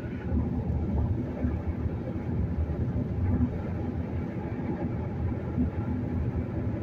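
Steady low rumble of a car cruising at highway speed, tyre and road noise heard from inside the cabin.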